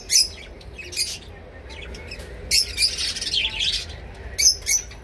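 Conures, green-cheeked conures, giving short, harsh, high-pitched squawks: single calls near the start and about a second in, a longer stretch of chattering calls around the middle, and two sharp calls near the end.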